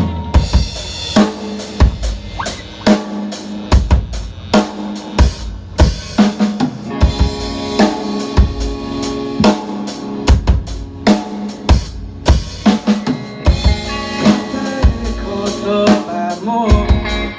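Rock band playing an instrumental passage: a drum kit with kick and snare keeping a steady beat under sustained pitched chords.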